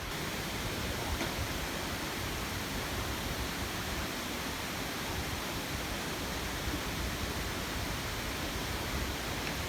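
Bousra waterfall rushing steadily: an unbroken, even noise of falling water.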